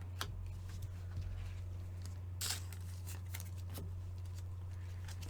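Faint handling of trading cards: light clicks and rustles, with one louder rustle about two and a half seconds in, over a steady low hum.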